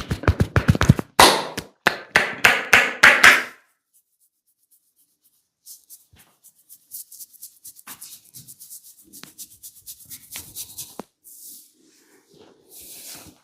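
Rapid percussive massage strikes on the body: a fast, loud run of slaps or chops for about three and a half seconds. After a pause come softer scattered taps and hand rubbing, then two short hisses near the end.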